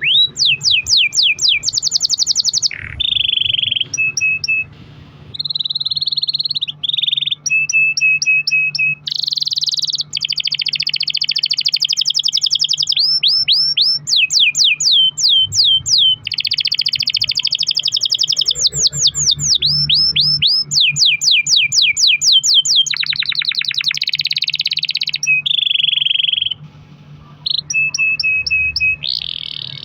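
Domestic canary singing a long, continuous song of fast rolls and trills: runs of rapidly repeated sweeping notes, changing phrase every few seconds, with brief breaks about four and a half seconds in and near the end.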